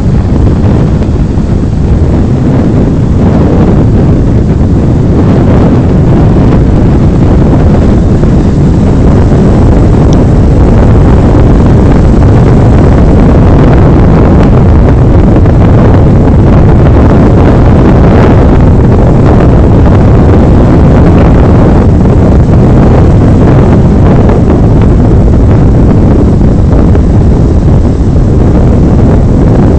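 Strong wind buffeting a phone's microphone with a loud, steady low rumble, over the wash of surf breaking on the beach.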